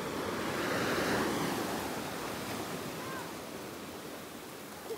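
Surf washing up on a sandy beach: a wave rushes in, swelling about a second in, then slowly fading as the water draws back.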